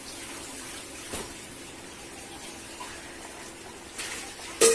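Steady hiss of a freshly lit gas stove burner under the pot of soup, with a light click about a second in and two sharp knocks near the end.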